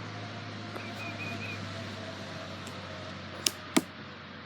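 Outdoor background with a bird repeating a quick run of three or four high chirps about a second in. Two sharp clicks close together in the second half are the loudest sounds.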